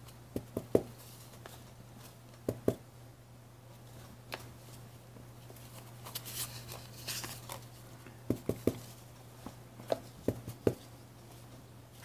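Light, scattered taps and clicks of a small rubber stamp being inked and pressed onto paper tags, with paper tags handled on the desk, over a low steady hum.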